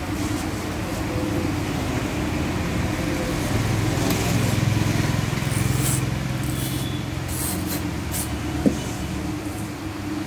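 A motor vehicle engine runs steadily, growing louder for a couple of seconds midway. Several short scrapes come over it, then a single sharp click near the end.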